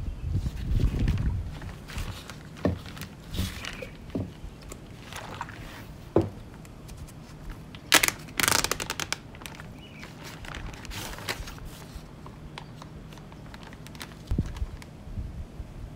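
Irregular knocks, clicks and rustling from objects being handled, with a quick run of scratchy scraping about eight seconds in.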